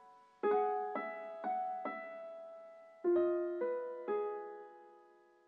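Background music: a soft piano melody of single notes, about two a second, in a run of four, a short pause, then three more that ring out and fade away near the end.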